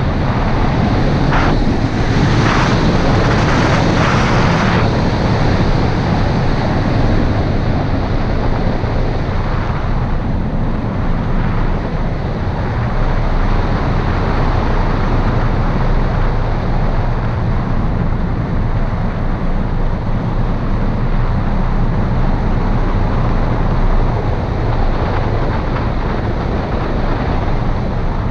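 Airflow rushing over the microphone of a camera mounted on a hang glider in flight, a steady loud wind noise with a few stronger gusts in the first five seconds.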